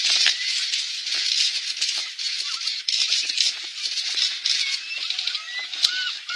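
Water splashing and churning as two brown bears wrestle in shallow water, a dense crackling hiss throughout. Short gull calls come in near the end.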